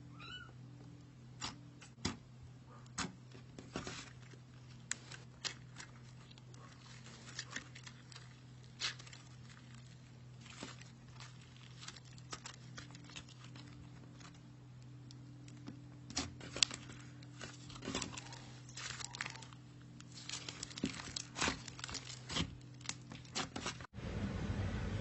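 Slime being squeezed and stretched by hand, giving scattered small clicks and pops that come thicker near the end, over a steady low hum.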